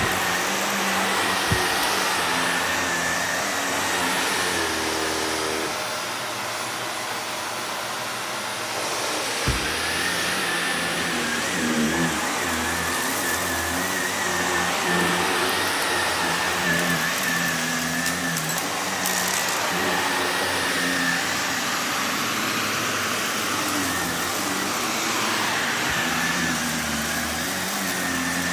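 Upright vacuum cleaner running steadily with a high motor whine as it is pushed over a rug. A few light crunches and clicks come from crumbs and debris being sucked up.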